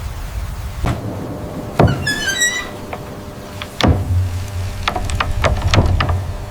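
A few sharp knocks and clacks over a low rumble, with a quick run of high chirping squeaks about two seconds in and a close cluster of clacks near the end.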